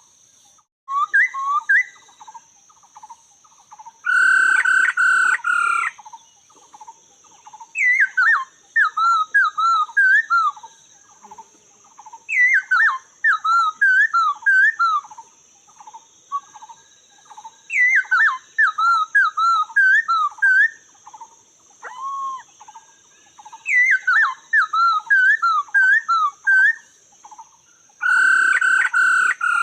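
Black laughingthrushes calling: a steady run of short clipped notes, about four a second, broken every few seconds by a loud phrase of swooping whistled notes. Twice, about four seconds in and near the end, a louder harsh chattering burst.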